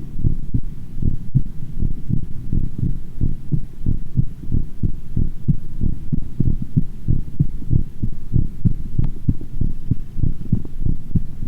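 A woman's heartbeat picked up by a microphone pressed against her skin: a fast, steady run of low thumps. The fast rate comes from dancing and drinking just before.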